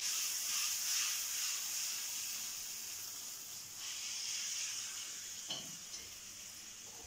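Water drops on a flat griddle tawa sizzling as it heats over a gas flame: a steady high hiss that starts suddenly and slowly dies away. A soft knock about five and a half seconds in.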